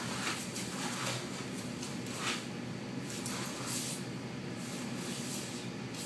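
Quiet room hiss with a few soft rustles of someone moving about.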